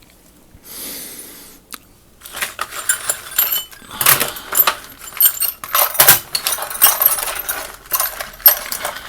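Small metal tools and hardware clinking and clattering against each other as they are shifted around, after a brief soft slide about a second in.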